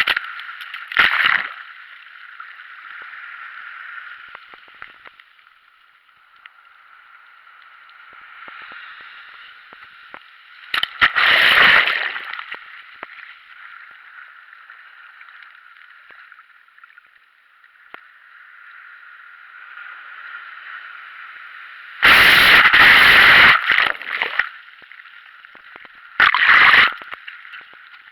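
Sea water sloshing and gurgling at the shoreline as a steady hiss, broken by several loud, sudden bursts of noise, the longest lasting about two seconds near the end.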